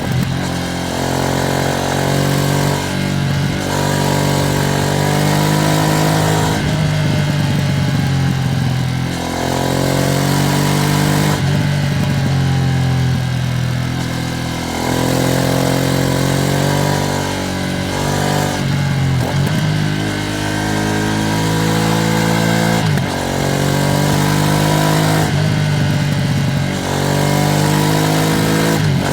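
Ducati Streetfighter V2S V-twin engine running under way, its revs rising and falling, with a short dip in the sound every few seconds as the throttle closes or a gear changes.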